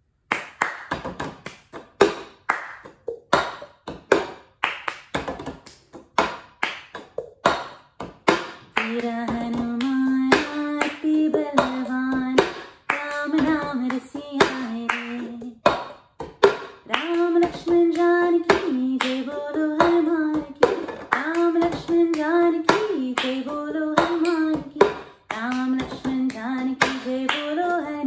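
Cup song rhythm: hand claps with a cup tapped, slapped and set down on a tabletop in a repeating pattern. About nine seconds in, a woman starts singing a bhajan over the rhythm, which keeps going under her voice.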